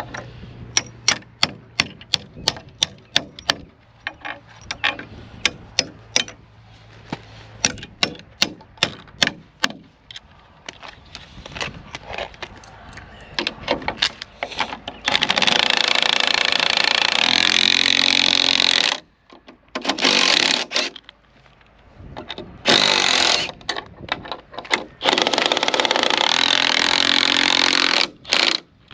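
A hammer striking bolts in a steel post bracket: a quick run of sharp metallic taps over roughly the first ten seconds. Then a DeWalt cordless impact driver runs the bracket bolts in during three long runs, the longest about four seconds, tightening them to draw the wooden column to the bracket.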